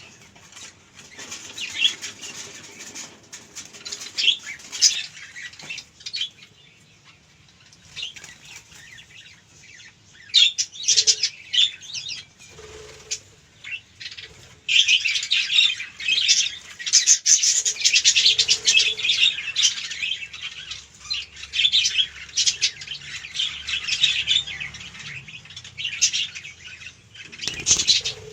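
Budgerigars chirping and chattering in quick, high-pitched bursts. The chatter thins out about a quarter of the way in, then grows busier and louder for the second half.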